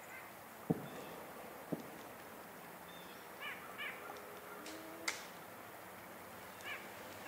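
A bird's short harsh calls, a few in quick succession about halfway through and again near the end. There are two dull thumps about a second apart near the start and a couple of sharp clicks around the middle.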